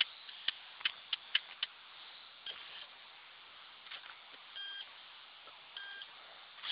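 A run of sharp clicks, then a Leica TCA2003 total station gives two short high beeps about a second apart.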